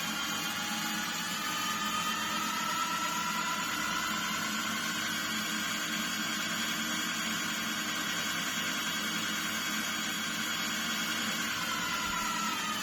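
Electric motor of a workshop machine tool running with a whine that rises in pitch over the first few seconds as it speeds up, holds steady, then begins to fall near the end as the machine is switched off and spins down.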